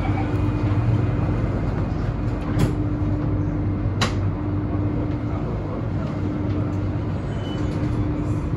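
Alstom Metropolis C830C metro train running through a tunnel, heard from inside the front car: a steady rumble of wheels and running gear with a constant low hum. Two sharp clicks come about two and a half and four seconds in.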